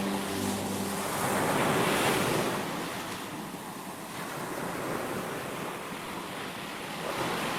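Ocean waves breaking and washing onto the shore: a rushing surf that swells about two seconds in, ebbs, and builds again near the end.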